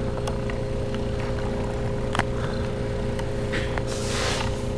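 Small stepper motor salvaged from a computer printer turning a threaded-rod axis, giving a steady whine of two close tones over a low hum. A few faint ticks, and a short hiss about four seconds in.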